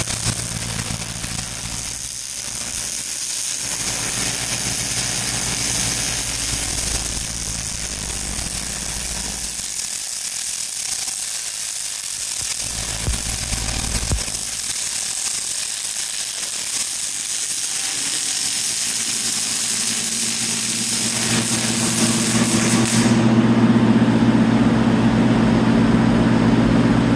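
Miller MIG welder arc crackling with a steady hiss during a long weld bead, stopping about four seconds before the end. A low steady hum continues underneath and is left alone after the arc stops.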